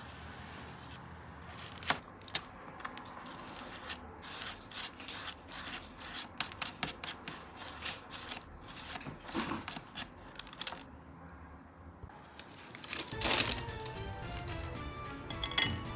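Peeled garlic clove rubbed over crisp grilled bread slices: a run of quick, irregular scratchy rasps. Near the end a single louder knock, with background music.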